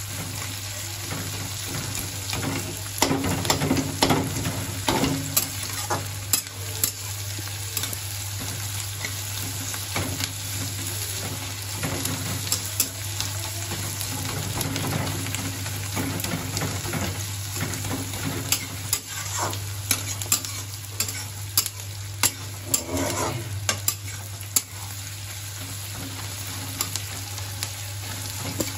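Sliced onions and green chillies sizzling in oil in an iron kadai, with a spatula scraping and clacking against the pan as they are stirred, in bursts of quick knocks.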